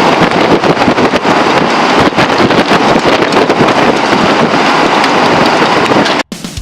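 Crowd applauding, a dense patter of clapping that cuts off abruptly near the end.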